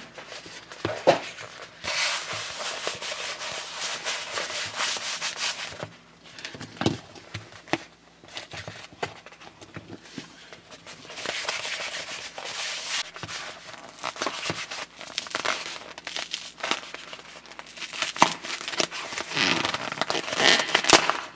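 Hands handling a large toy surprise egg: rubbing and crinkling against its shell and plastic wrap, with scattered small clicks and crackles as the shell is pressed until it cracks.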